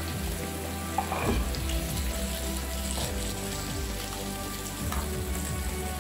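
Slices of meat and mushrooms sizzling steadily on an electric grill's nonstick plate, with a few light clicks of chopsticks on the food and plate.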